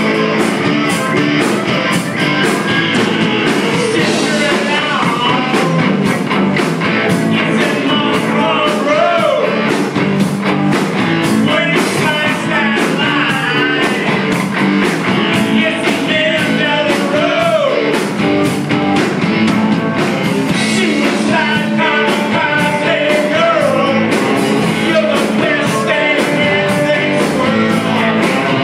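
Live rock band playing: electric guitars and drums under a lead vocal whose notes slide up and down in pitch.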